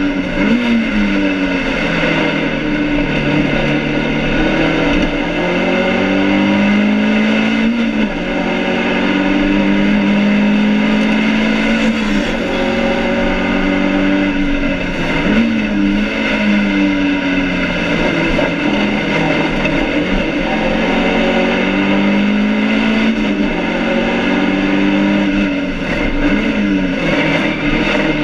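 BMW 2002 race car's four-cylinder engine heard from inside the stripped cabin at racing speed. The revs climb and drop sharply several times as the driver shifts gears and brakes into corners, short-shifting to spare an overheating engine.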